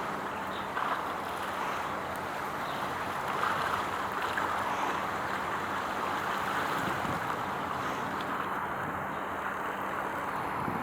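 Steady outdoor wind noise on the microphone with water wash, and a faint low steady hum underneath.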